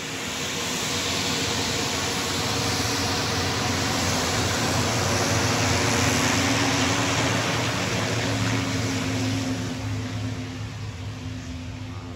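Cessna Conquest II's twin Garrett TPE331 turboprop engines running at taxi power as the aircraft taxis past: a steady turbine hiss over a low propeller hum. It is loudest about six seconds in and fades as the plane turns away.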